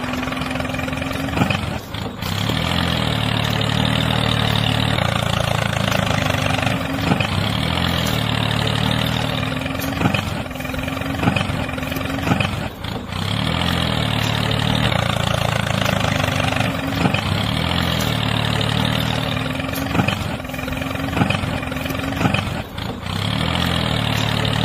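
Tractor engine running steadily at a low idle-like chug, with a pattern that repeats every two to three seconds.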